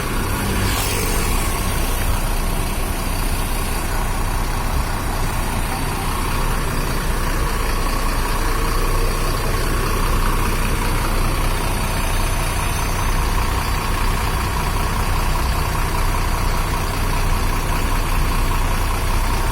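Used intercity bus's diesel engine idling steadily through its custom aftermarket exhaust, a continuous low rumble.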